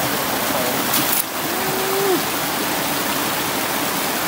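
Mountain stream water rushing and splashing over rocks into a pool, a steady noise. A short low hooting tone sounds briefly about a second and a half in.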